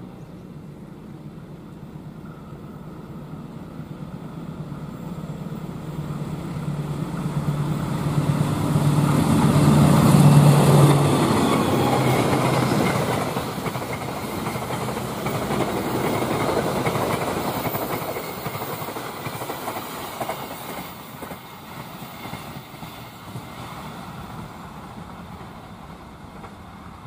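Passenger train hauled by a diesel locomotive passing at speed. The engine hum grows to its loudest about ten seconds in and drops in pitch as the locomotive goes by. Then the clatter of the coaches' wheels on the rails fades as the train moves away.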